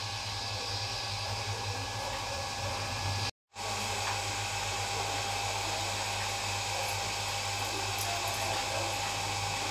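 A steady machine-like hum and hiss, cutting out briefly about a third of the way in.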